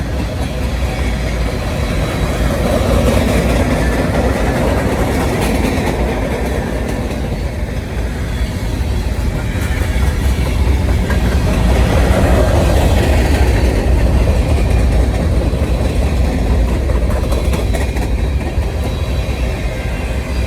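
Manifest freight train's cars rolling past: a steady, loud rumble of steel wheels on rail with clickety-clack over the rail joints.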